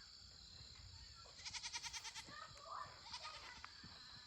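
Nigerian dwarf goat bleating: a quavering bleat about a second and a half in, then a shorter one about three seconds in.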